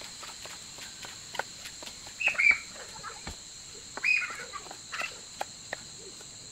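Kitchen knife chopping leafy greens on a wooden butcher-block counter: a series of irregular knife taps. A steady drone of insects underneath, and two short, louder bird calls about two and four seconds in.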